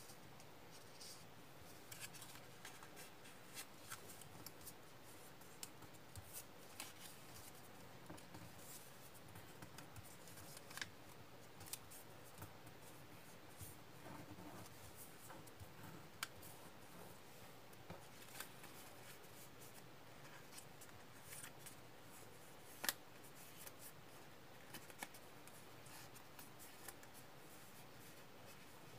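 Origami paper being folded by hand: faint rustling and crinkling with scattered light ticks as fingers press the creases flat, and one sharper click late on.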